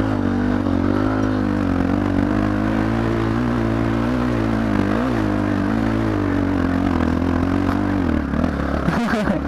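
Single-cylinder trail motorcycle engine running at steady, fairly high revs, its pitch dipping and recovering slightly, then changing unsteadily near the end.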